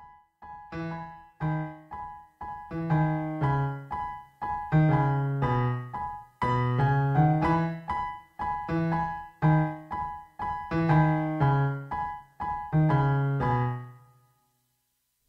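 Background piano music: slow single notes and chords, each fading away, stopping about a second before the end.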